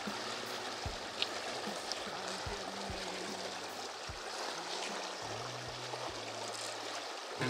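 Steady rush of flowing river current, with a few soft low thumps.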